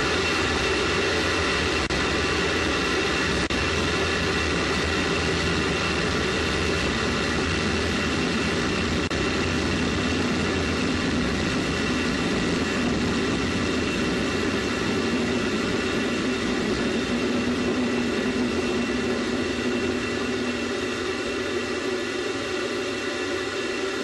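Space Shuttle solid rocket booster burning during ascent, picked up on the booster itself: a loud, steady, dense rushing noise with several steady whistling tones held through it. In the last few seconds the deep part of the noise fades as the motor's thrust tails off toward burnout.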